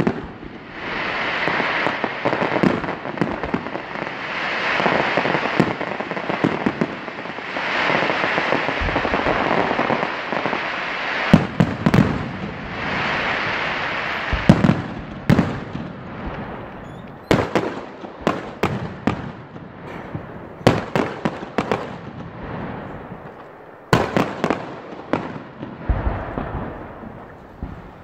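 Professional fireworks display: shells bursting overhead, first in long waves of dense crackling, then as a quick run of many sharp bangs through the second half.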